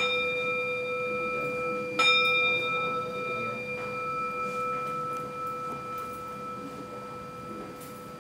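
Temple bowl bell struck twice, about two seconds apart, each strike ringing on in a long, slowly fading hum of several tones.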